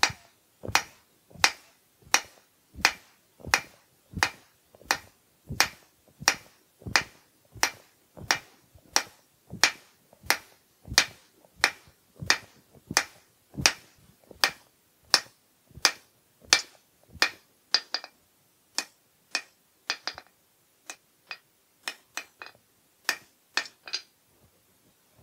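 Hand hammer striking a hot steel bar on an anvil in a steady rhythm of about three blows every two seconds, drawing the bar out thinner behind an isolated section. In the last several seconds the blows become sparser and irregular, then stop.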